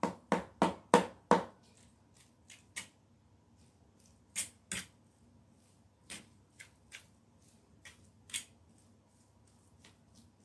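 A metal fork mashing boiled potatoes and butter in a tray, tapping against the bottom: a quick run of about five even taps in the first second and a half, then scattered lighter taps and knocks.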